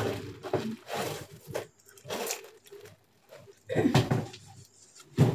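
Plastic food bags crinkling and a cardboard box being handled and set down, in several short bursts of rustling and knocking.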